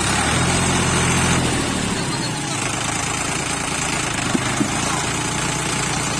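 Sonalika 45 HP tractor's diesel engine running steadily, a little louder in the first second or so before settling. Two short knocks come about four and a half seconds in.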